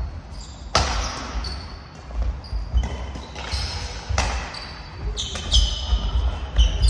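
Badminton rally in an echoing sports hall: several sharp racket hits on the shuttlecock, the two loudest about a second in and about four seconds in, with sneakers squeaking on the wooden court floor between shots.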